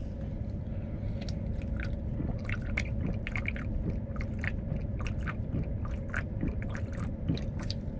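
A man gulping a drink from a large aluminium can, with a string of short, irregular swallowing clicks, over a steady low hum in the truck's cabin.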